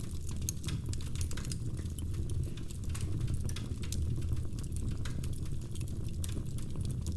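Wood fire crackling in a fireplace: many small irregular pops and snaps over a steady low rumble of the flames.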